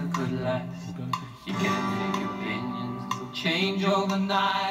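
Pop music from a 7-inch single playing on a KB Tunetime ORP10 record player, heard through the player's own small front loudspeaker, with held notes over a steady backing.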